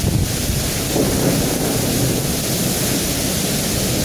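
Torrential rain pouring down in a strong gusting wind, with a deep rumble that swells at the start and again about a second in.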